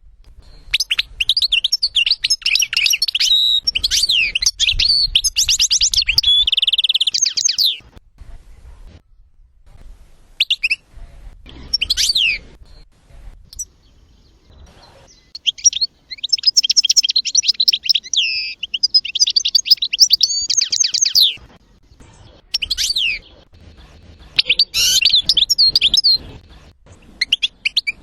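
Songbird song in long, rapid, twittering phrases of several seconds each, separated by pauses, from a recorded song tape of the kind played to train cage birds.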